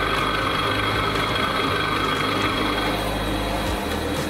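Bench drill press running, its twist drill cutting a hole through a thick steel plate: a steady motor hum with a high, even cutting whine.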